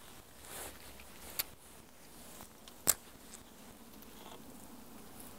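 Quiet background with two short, sharp clicks, about a second and a half in and about three seconds in, the second the louder.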